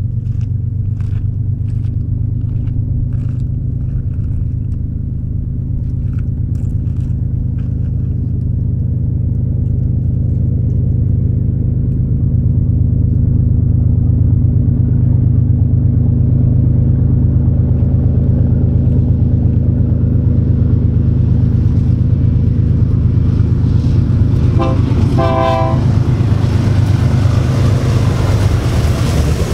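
BNSF freight train's diesel locomotives approaching, their engines a steady low drone that slowly grows louder, with a short horn sound near the end.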